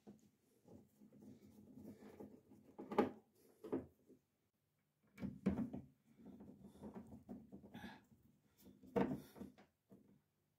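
Knocks and clatter of a screwdriver and the tumble dryer's plastic and sheet-metal cabinet parts being handled while the front is screwed back on. The sharpest knocks come about three seconds in and again about nine seconds in.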